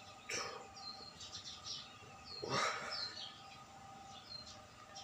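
Small birds chirping in short, high chirps throughout. A person doing push-ups breathes out hard twice, about a third of a second in and again about two and a half seconds in; the second breath is the loudest sound.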